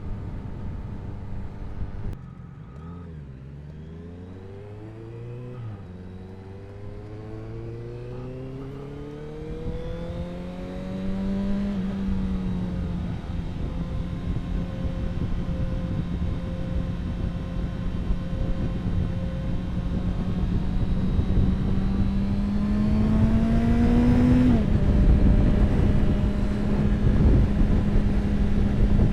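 Honda CBR650F inline-four motorcycle engine through an aftermarket Ixil exhaust, accelerating up through the gears: the note rises, drops at three upshifts, then holds a steadier cruising pitch. Wind rumble on the microphone underneath.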